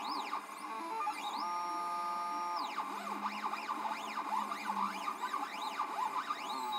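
Stepper motors of a DIY Arduino/GRBL CNC pen plotter whining in quick rising and falling pitch sweeps as the axes speed up and slow down through short pen strokes. About a second and a half in, the whine holds a steady pitch for about a second during a longer move.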